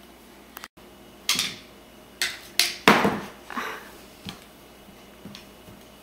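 Juggling sticks knocking against each other and clattering onto a hardwood floor as they are fumbled: a string of sharp knocks, the loudest about three seconds in.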